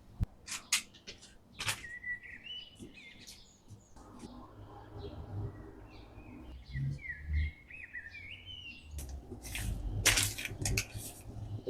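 Small birds chirping in short series of quick rising and falling notes, with a few sharp clicks in between.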